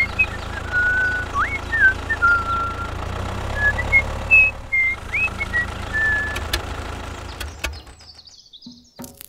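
Toy tractor's engine drone, steady and low, with high whistled chirps over it. The drone fades out near the end, followed by a few sharp clicks.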